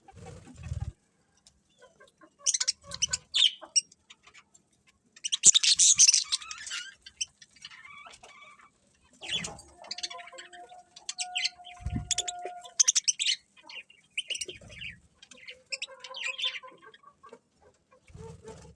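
Several birds chirping and calling in irregular bursts, with one held whistle-like note of about two to three seconds near the middle and a few short low sounds in between.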